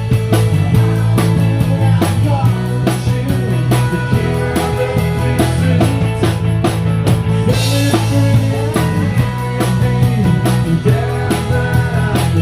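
Live rock band playing: a drum kit keeping a steady beat, bass guitar holding low notes, and pedal steel guitar sliding between notes, with a cymbal crash about halfway through.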